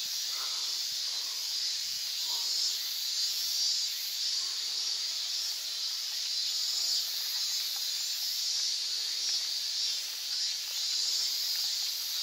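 Insect chorus: a steady, high-pitched buzzing hiss with a slight pulsing.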